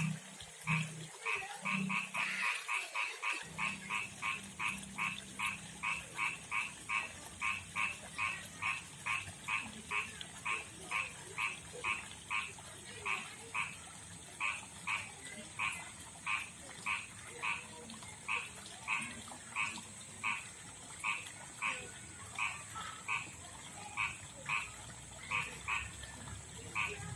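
Male frog's mating call: short croaks repeated steadily about twice a second, calling for a female.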